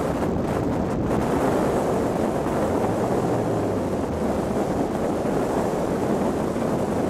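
Turbocharged Nissan S13 Silvia's engine running hard on a sprint lap, buried under heavy wind buffeting on the microphone. The mix holds steady throughout.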